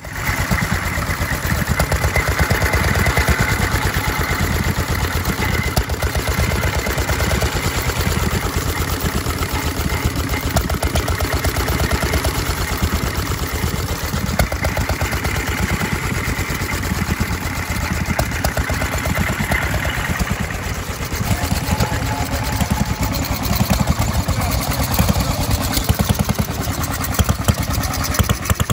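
Small antique stationary gasoline engine running steadily, with a rapid, even exhaust beat.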